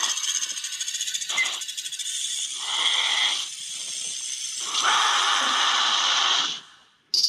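Snake hissing with a fast rattling buzz, in several long hisses of shifting loudness, cutting off abruptly near the end.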